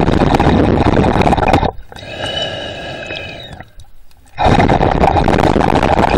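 The breathing of the swimmer holding the camera, heard underwater in a repeating cycle. A long loud rushing breath is followed, a little before 2 s, by a quieter breath with a steady whistle-like tone. After a short pause, another loud rushing breath begins at about 4.5 s.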